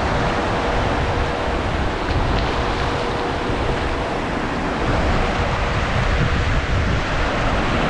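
Sea surf washing onto the beach, with strong wind buffeting the microphone in a steady low rumble.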